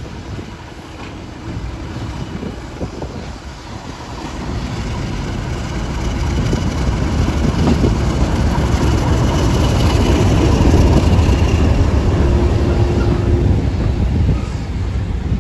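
Train running past close by, its low rumble building to a peak about ten seconds in.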